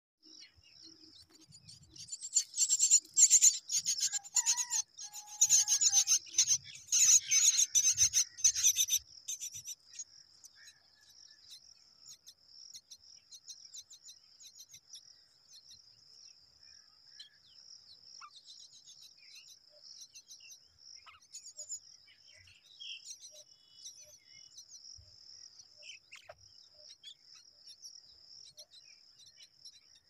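Common myna calls at the nest, a loud rapid run of calls lasting several seconds from about two seconds in, over a steady high insect drone like crickets that carries on after the calls stop.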